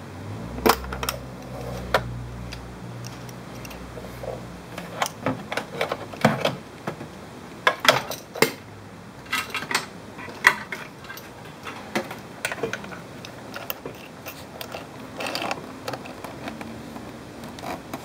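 Scattered clicks, knocks and rattles of hard plastic and metal equipment being handled, with a low hum during the first few seconds.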